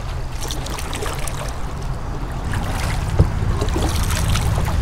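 Swirling river water and paddle splashes around kayaks, over a steady low rumble, with one sharp knock about three seconds in.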